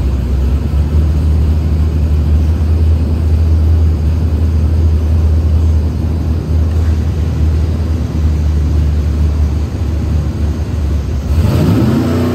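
Whipple-supercharged 5.3 Superdeck LS V8 running loud and steady at low revs on an engine dyno, then about eleven seconds in the revs begin to climb as a dyno pull starts.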